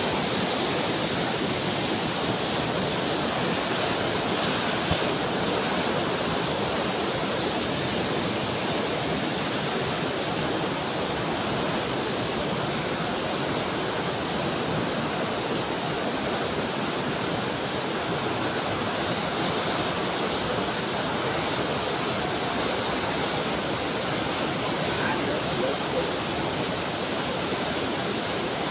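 Heavy rain pouring steadily, a dense unbroken hiss of downpour.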